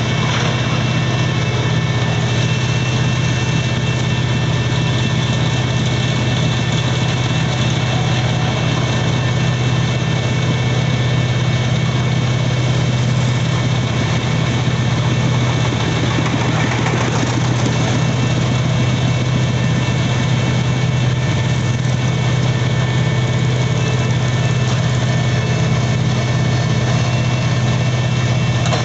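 Heavy diesel engine of road-concreting machinery running steadily at a constant speed, with a strong low hum.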